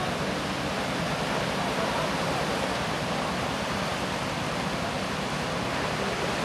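Steady rushing noise of a boat under way on a flooded river, with a fast low throb underneath.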